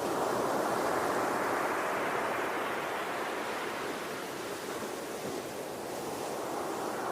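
Ocean surf: a wave swells and breaks at the start, then washes out and fades through the middle.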